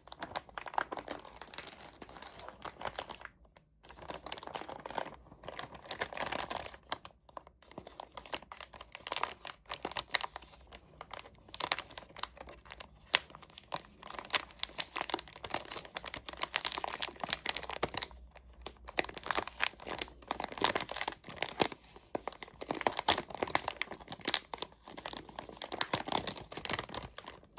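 Packaging crinkling and crackling as it is handled during a keyboard unboxing: dense, irregular crackles, with brief lulls about three and a half seconds in and again around eighteen seconds in.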